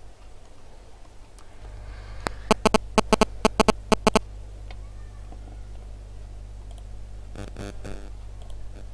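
A quick run of about a dozen sharp clicks from a laptop's keys and buttons, then a few fainter clicks near the end, over a steady low hum that comes in under two seconds in.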